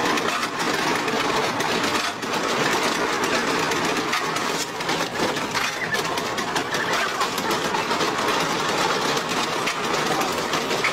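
Horse-powered treadmill driving a saw rig as a log is fed through it: a steady, dense mechanical clatter mixed with the rasp of the blade cutting wood.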